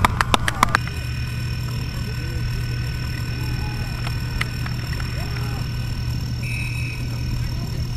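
A rapid run of sharp clicks that cuts off abruptly under a second in, followed by a steady low hum with faint distant voices.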